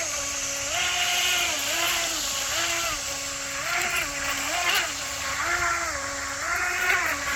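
DEERC brushless RC race boat's electric motor whining at speed, its pitch stepping up and down again and again, about once every second or so, over a hiss of water.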